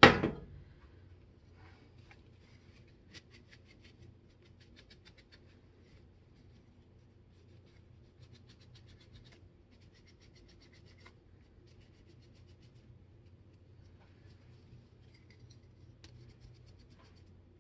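Faint, intermittent scratching and rubbing of hands working small parts of a pneumatic framing nailer as O-rings are seated and the parts cleaned. The scratching comes in short spells of fine rapid scrapes, over a steady low hum.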